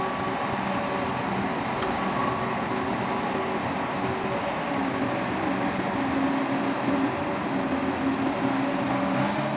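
Tractor-mounted corn silage harvester running with the tractor's engine driving it: a steady, dense mechanical noise with engine tones that shift slightly in pitch.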